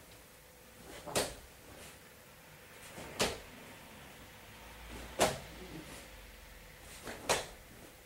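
Four low roundhouse kicks landing on a training partner's leg, about two seconds apart, each a sharp slap with a softer sound just before it.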